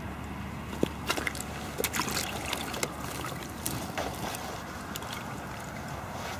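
Steady low rumble of wind on the microphone, with a scatter of small sharp clicks and rustles from hands handling a freshly caught fish and the fishing tackle, thickest in the first few seconds.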